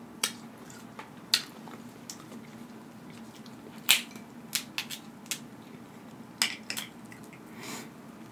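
Crab leg shells being cracked and snapped apart by hand: a string of sharp cracks and clicks at uneven intervals, the loudest about four seconds in.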